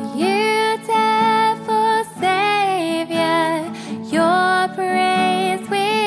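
A woman singing a worship song in held, slightly wavering notes over acoustic guitar accompaniment.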